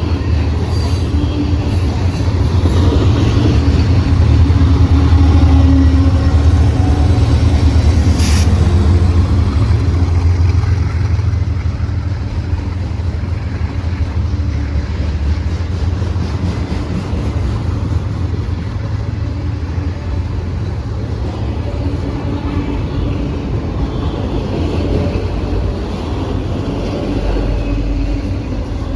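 Norfolk Southern freight train rolling past: a steady low rumble of wheels on rail, loudest in the first third and easing a little after that, with one brief sharp high squeak or clank about eight seconds in.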